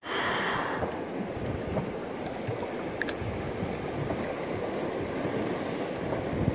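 Steady sea noise: choppy waves washing on open water, with wind on the microphone and a couple of faint clicks.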